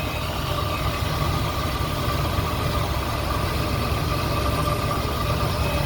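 1969 Camaro SS's numbers-matching 350 L48 V8 with Quadrajet carburetor idling steadily.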